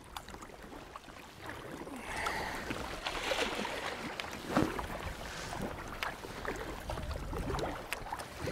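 Aquabound kayak paddle blades dipping into and pulling through the sea on alternating strokes, with water splashing and sloshing around the kayak. It grows louder about two seconds in.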